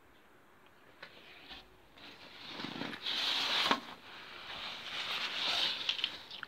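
Fabric and a backpack rustling and scraping right against the phone's microphone, in two long swells after a couple of light clicks.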